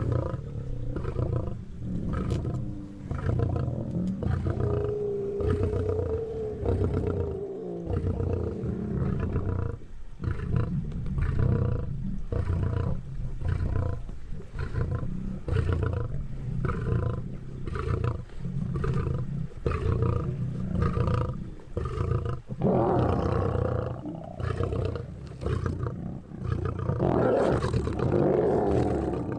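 Lions feeding on a zebra carcass, growling in a continuous low rumble, with louder snarls about three-quarters of the way through and again near the end.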